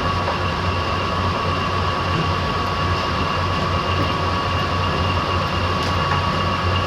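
Manual Mori lathe running in high gear with the power feed engaged, taking a turning cut: a steady machine drone with a constant high whine.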